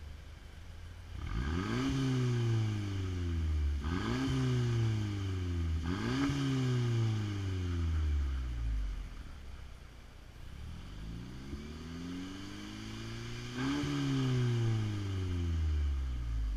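2014 Mercedes-Benz CLA 250's turbocharged 2.0-litre four-cylinder revved at standstill through a TurboKits quad-tip axle-back exhaust. It gives three quick blips about two seconds apart, each dropping back slowly, then a slower climb to a fourth rev near the end before falling back to idle.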